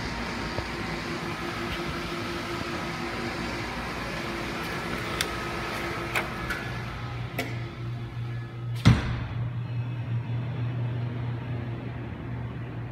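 Steady outdoor hiss, then a few latch clicks of a glass-paned door and one loud thud as it shuts about nine seconds in. After the thud the hiss is cut off, leaving a steady low hum of the room's air conditioning.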